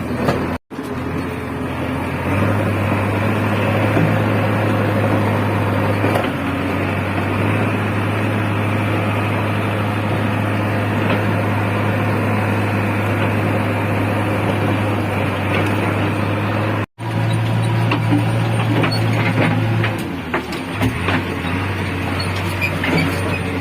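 Diesel engine of a JCB 3DX backhoe loader running steadily under working load, a low even drone. The sound cuts out abruptly twice, near the start and about two-thirds of the way through.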